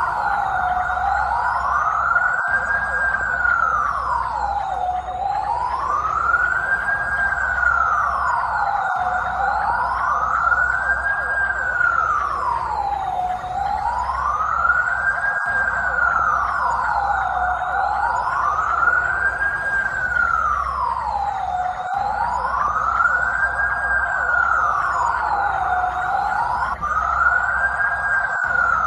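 Emergency vehicle siren sounding a slow wail, its pitch rising and falling smoothly and evenly about once every four seconds.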